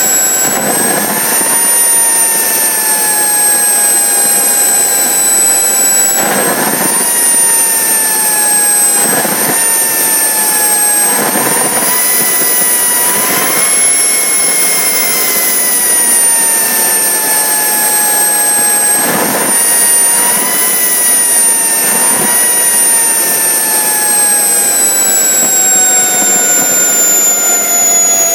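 Mini turbojet engine running on a test stand: a loud, steady jet rush under a high turbine whine whose pitch rises and falls several times, highest about halfway through.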